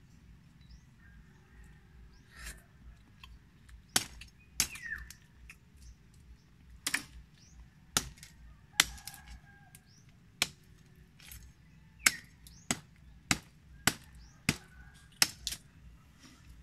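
A bolo knife striking sharply about a dozen times at irregular intervals, starting about four seconds in, as it hacks sisi shellfish off mangrove roots.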